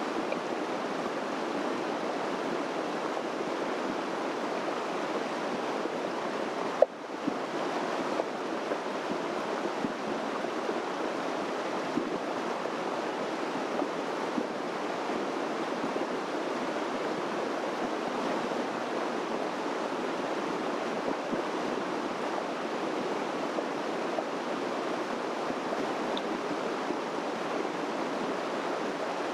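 Steady rushing of a flowing stream. A sharp click about seven seconds in, where the rush briefly drops.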